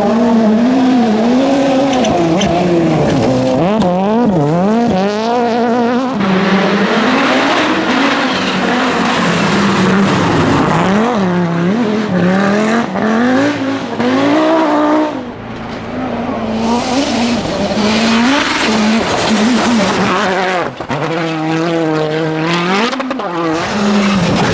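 Rally cars driven flat out on a special stage: engines revving hard and dropping back again and again through gear changes and corners, with tyre noise, in several short cuts that change abruptly about six, fifteen and twenty-one seconds in.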